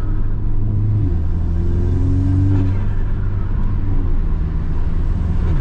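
Audi S3's turbocharged four-cylinder engine pulling under acceleration with its diverter valve removed. There is a short break about a second in, as in a gear change, then a steady pull until it lets off at the end.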